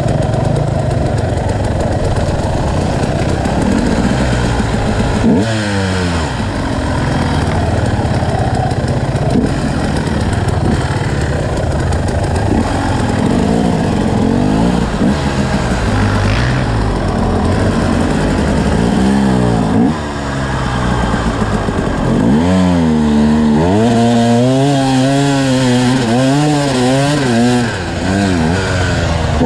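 KTM EXC 250 enduro motorcycle engine being ridden hard off-road, its revs climbing and dropping over and over, in quick rises and falls about once a second near the end.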